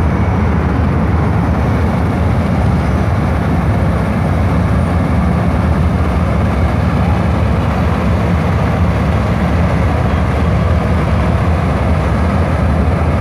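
Combine harvester engine running steadily: a loud, even, low drone that doesn't change.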